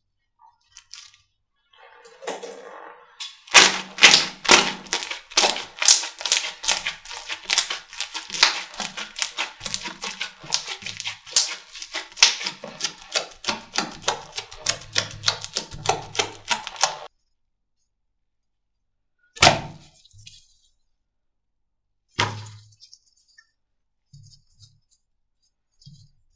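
Slime being handled, giving a dense run of sharp crackling clicks and pops that stops abruptly, followed by two single snaps a few seconds apart.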